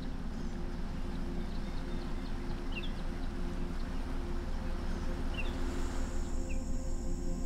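Outdoor nature ambience: small birds chirping now and then over a steady low background. From about six seconds in, a steady high insect buzz joins them, typical of crickets or grasshoppers in prairie grass.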